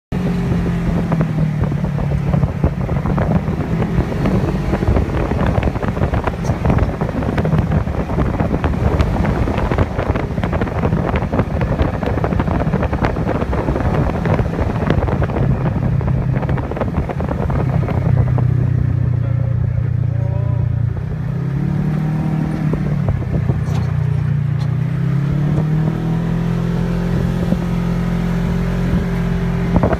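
Polaris RZR 1000 side-by-side's twin-cylinder engine running steadily under way, heard from the cab with wind and bumpy road noise over the first two-thirds. Later the noise thins and the engine note falls and rises again.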